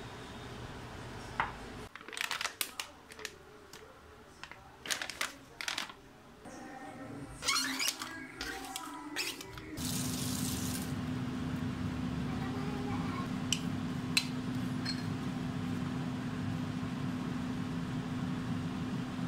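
Clinks and knocks of a spoon against ceramic soup bowls, several sharp taps over a few seconds. About ten seconds in, a steady low mechanical hum with one even tone starts and runs on.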